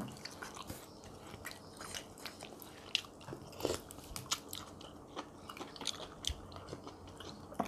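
People chewing and biting food at close range, with irregular sharp crunches, among them fresh herb sprigs bitten off raw.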